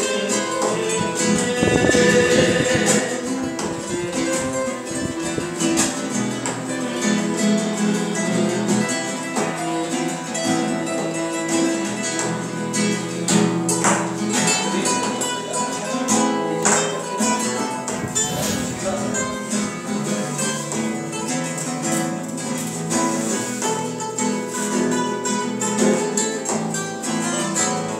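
Several nylon-string classical guitars playing together in flamenco style, dense plucked and strummed chords and runs, with a man singing over them.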